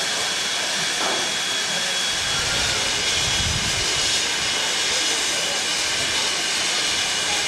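Steady, loud hiss of steam from an LMS Black Five 4-6-0 steam locomotive, even in level throughout with a faint high whistle-like tone running through it.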